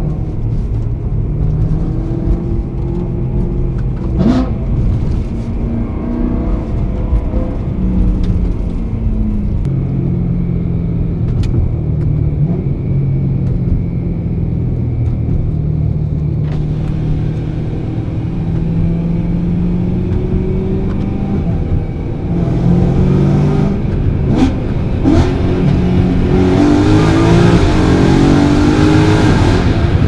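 BMW E92 M3's naturally aspirated 4.0-litre V8 heard from inside the cabin while driving, its note climbing with the revs and dropping back at each gear change. It gets louder over the last several seconds as the car accelerates harder.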